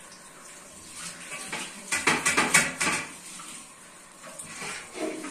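Dishes being washed by hand in a stainless steel sink, with tap water running. A quick run of clinks and clatters comes about two seconds in.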